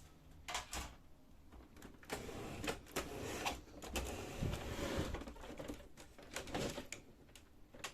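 Plastic laser-printer covers and parts being handled: a series of sharp clicks and knocks, with a stretch of scraping and rubbing in the middle.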